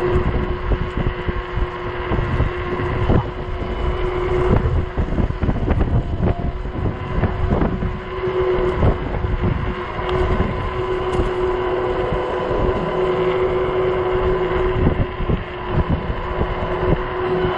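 Gusty wind buffeting the microphone during a ride on a fat-tire e-bike, with a steady whine underneath.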